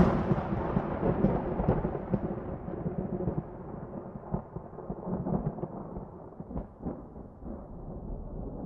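Rumbling tail of a deep cinematic boom sound effect, fading and growing steadily duller over several seconds, with a few faint crackles in the second half.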